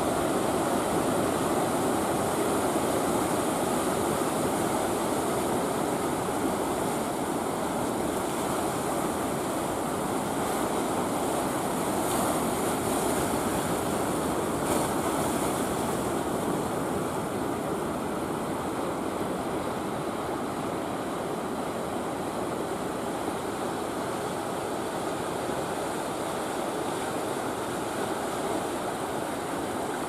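Big ocean waves breaking onto the beach: a steady, continuous rush of heavy surf that eases a little in the second half.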